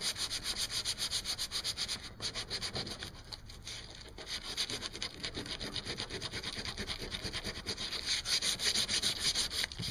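Coarse sandpaper rubbed by hand in quick back-and-forth strokes over a melted-plastic patch on an HDPE kayak, smoothing the repair. The strokes ease off briefly around the middle and grow louder near the end.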